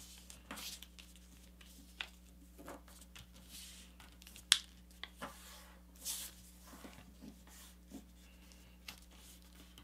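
A sheet of paper being handled and creased by fingers on a cutting mat: faint rustles and scrapes, with a sharper crinkle about four and a half seconds in, over a faint steady hum.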